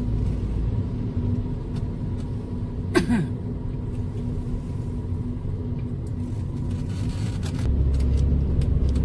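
Car driving, heard from inside the cabin: steady engine and tyre rumble. There is one brief sharp sound about three seconds in, and the low rumble grows louder near the end.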